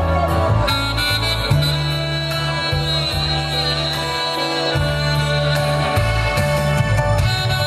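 Saxophone playing a melody of long held notes live over a backing track with a steady bass line and drum beat.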